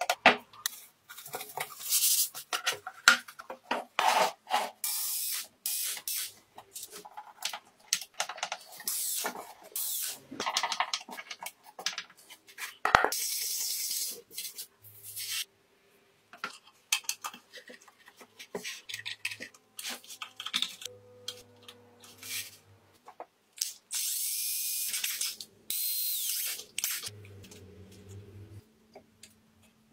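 Hands-on workshop noise from working on small parts: irregular clicks, knocks and scraping, with longer rasping stretches about halfway through and again near the end.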